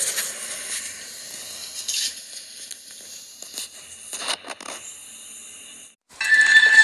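Hissy rustling and crinkling with scattered knocks and clicks from a handheld camera being handled and swung around. About six seconds in it cuts off and loud music starts.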